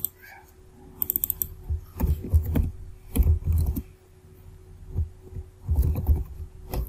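Typing on a computer keyboard, with mouse clicks: a quick run of light key clicks about a second in, then several heavier, duller taps.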